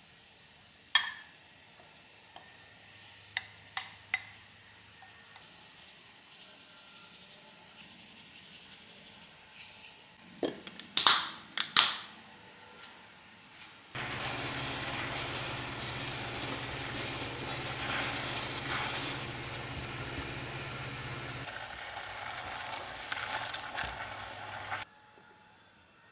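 Kitchen handling sounds: a few sharp clicks, then a cluster of loud knocks and clatters. After that comes a steady running noise with a low hum for about eleven seconds, which cuts off suddenly near the end.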